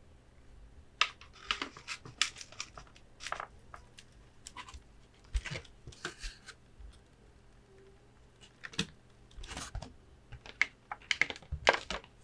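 Gloved hands tapping and handling Pokémon promo cards and plastic card stands: irregular quick clicks and crinkly taps in clusters, loudest about a second in and near the end.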